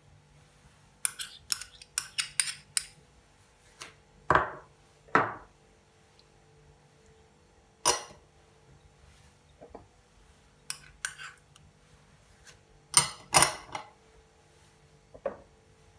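Small glass prep bowls clinking and scraping against a large glass mixing bowl as marinade ingredients are tipped and scraped out. A quick run of scrapes comes first, then scattered knocks, with the loudest pair near the end.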